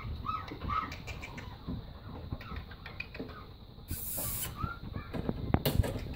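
Five-week-old puppies yipping and squeaking in short, high calls while they play, several in quick succession at the start and another near the end. A brief rustling burst comes about four seconds in, and a few sharp knocks come near the end.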